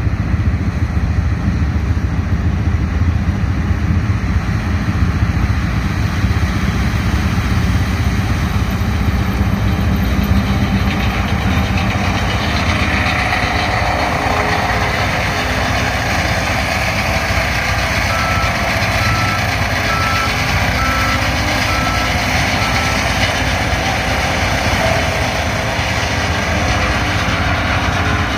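John Deere T670i combine running steadily during the corn harvest, a constant loud machine noise. About two-thirds of the way through, a warning alarm sounds a short series of about six evenly spaced beeps, roughly one a second.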